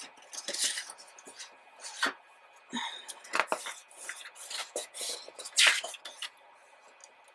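Hands handling a large, heavy cardboard-bound photobook: paper and board rustling and scraping with a few light taps, and a big stiff page swishing over about five and a half seconds in.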